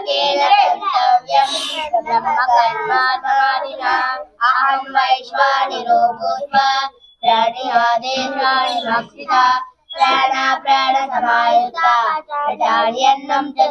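A group of children chanting a prayer together, in short sung phrases with brief pauses between them.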